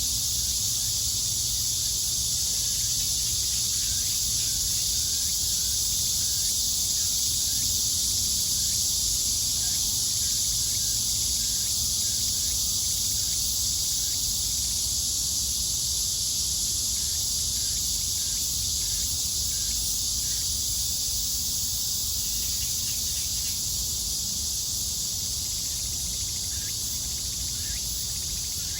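A chorus of cicadas making a steady, dense, high buzz, with faint short chirps scattered through it.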